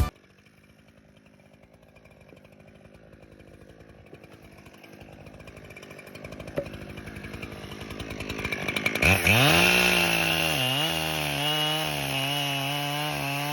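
Echo 7310PW two-stroke chainsaw, faint at first and growing steadily louder. About nine seconds in it revs up to full throttle and runs loud and steady, its pitch sagging briefly once as it takes load, as when the chain bites into hard locust wood.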